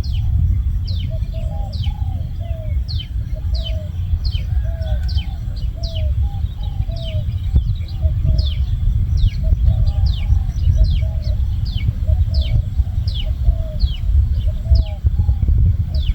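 Birds calling: a run of short low notes and a run of quick high downward chirps, each repeating about twice a second, over a steady low rumble.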